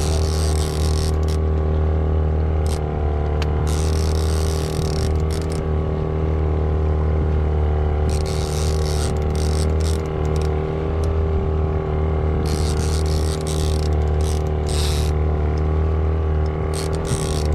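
Boat motor running steadily, with a fishing reel ratcheting in several stretches of a second or two while a fish is reeled in.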